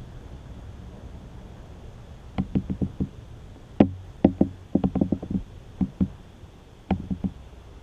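Irregular knocking in quick clusters of three to five hits, over a low steady rumble.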